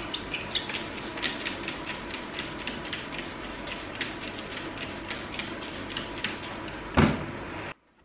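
Microfibre cloth wiping car paintwork wet with solvent panel wipe: a quick, irregular run of short rubbing strokes. A single loud thump about seven seconds in, then the sound cuts off abruptly.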